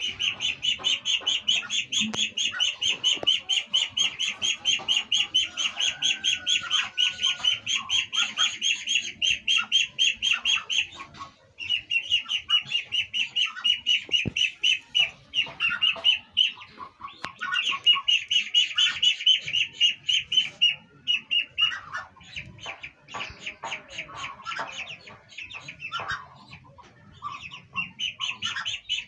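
Muscovy ducklings peeping: long runs of rapid, high, repeated peeps, several a second, broken by a few short pauses.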